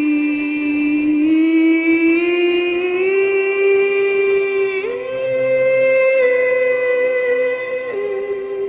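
Music: a wordless sung melody of long held notes that step up and down in pitch, with one clear jump upward about five seconds in.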